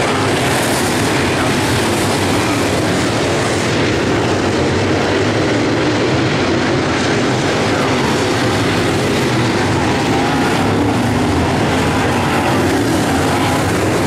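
Several dirt late model race cars' V8 engines running hard as the pack laps the dirt oval, a loud, steady drone of many engines together.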